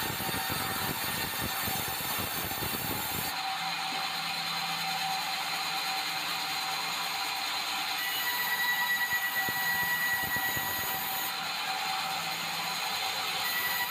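Large band saw running and ripping a board of red meranti wood, a steady mechanical noise with a thin high whine. The low rumble drops away about three seconds in.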